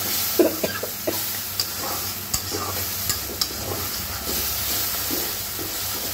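Spiced chicken masala sizzling and steaming in a karahi, with a little hot water just added, while a spatula stirs and scrapes it. Several sharp clicks of the spatula striking the pan.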